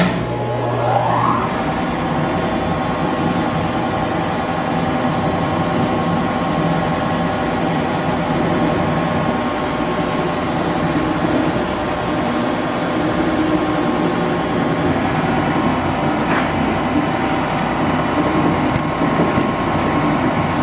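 Belt-driven metal shaper started up in a line-shaft shop: a rising whine as it comes up to speed over the first second or so, then the machine running steadily with a dense mechanical clatter and hum.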